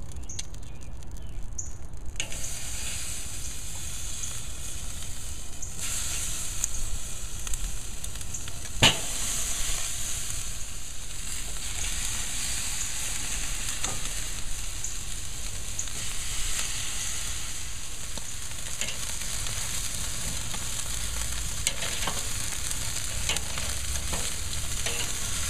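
Chicken drumsticks sizzling steadily on a hot charcoal grill grate, the hiss setting in about two seconds in. Occasional sharp clicks of metal tongs on the grate, the loudest near the middle.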